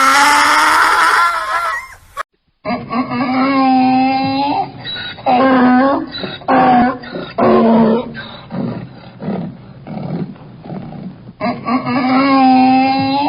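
Donkey braying: one rising call, then after a cut about two seconds in, a run of repeated brays with short breaks between them.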